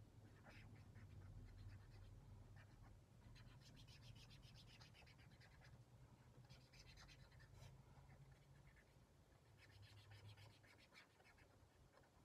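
Faint scratching of a marker tip colouring on sketchbook paper, in three spells of quick back-and-forth strokes about three and a half, six and a half and nine and a half seconds in. A low steady hum sits underneath.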